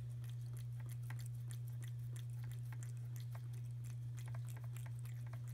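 Domestic cat chewing wet food chunks in gravy straight from the can: a run of small, irregular wet chewing clicks, several a second. A steady low hum runs underneath.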